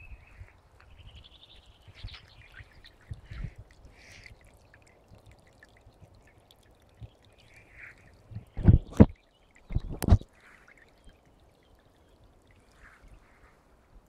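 Small forest brook trickling and splashing over stones and fallen leaves, a steady faint rush with short higher splashes. Three or four loud thumps come close together about two-thirds of the way through.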